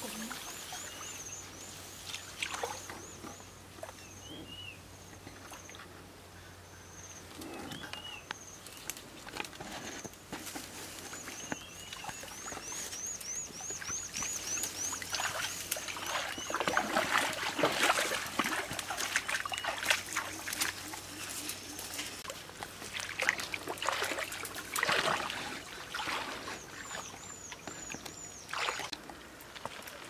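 Tall dry grass rustling and swishing as people push through it, the crackling heaviest in the second half. Over it come runs of high chirping calls, several a second, the longest about halfway through and another near the end.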